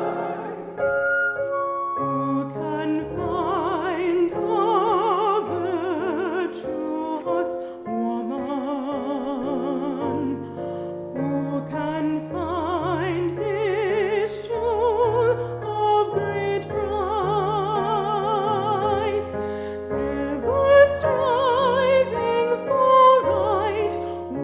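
Operatic singing with a strong vibrato over held low instrumental accompaniment.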